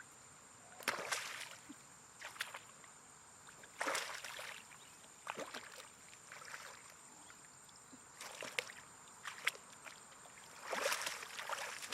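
Water splashing and sloshing in short bursts every second or two, as hands or feet move through shallow water, over a faint steady high-pitched tone.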